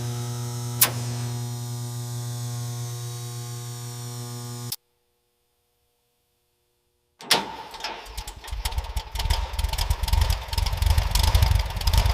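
A steady, even-pitched hum fading slowly, with one click about a second in, cuts off abruptly into silence. About three seconds later comes a louder, irregular run of clanking and knocking: wrench work breaking the engine's manifold bolts loose.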